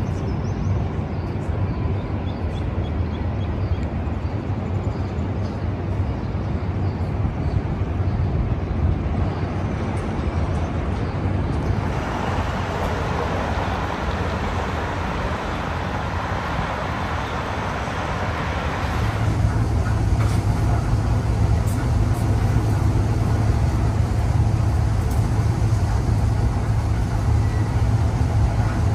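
Steady city road-traffic noise with no clear single event. A broad hiss swells for several seconds around the middle, and in the last third a deeper, louder steady hum takes over.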